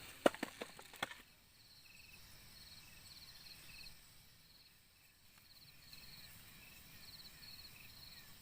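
Forest insects chirping in short, repeated pulsed trills over a quiet background. A few sharp knocks come in the first second, then the sound drops abruptly to just the insects.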